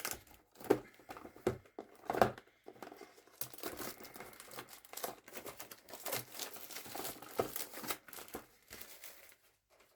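Packaging being pierced with a dart's point and torn open: dense, irregular crinkling and tearing of the wrapping, with a few sharper snaps about a second and two seconds in.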